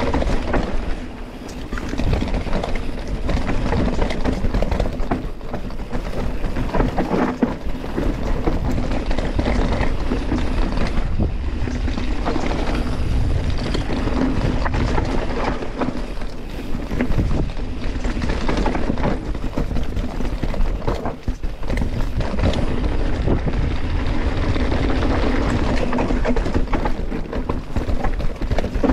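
A mountain bike ridden down a steep, rooty dirt trail: tyres rumble over dirt and roots, and the bike rattles and knocks without a break, with wind buffeting the action-camera microphone.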